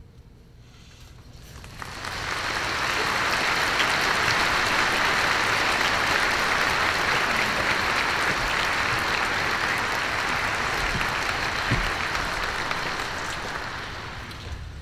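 Audience applauding at the end of a concert band piece. The applause starts about two seconds in, holds steady, and dies away near the end.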